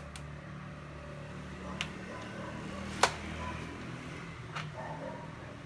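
Three short sharp clicks from handling a cordless string trimmer, the loudest about three seconds in, over a low steady hum; the trimmer head is not spinning.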